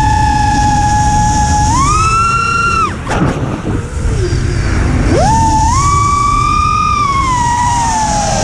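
FPV quadcopter's brushless motors whining over wind rush on the onboard microphone. The whine rises as the throttle goes up about two seconds in and cuts out near three seconds. It surges back up around five seconds, then slowly sinks in pitch.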